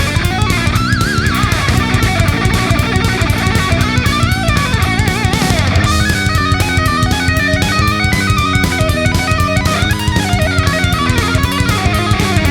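Background rock music with distorted electric guitar and a driving drum kit; a lead guitar line with vibrato carries the melody.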